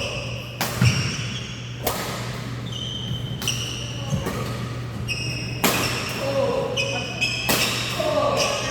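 Badminton rally in a large hall: rackets smack the shuttlecock every second or two, and sports shoes squeak and thud on the court floor between the hits.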